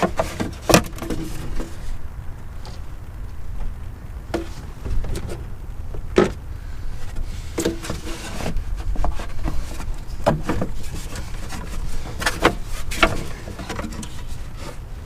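Engine cover being handled and fitted back into place over the engine: a string of scattered clicks and knocks, one every second or two, over a steady low rumble.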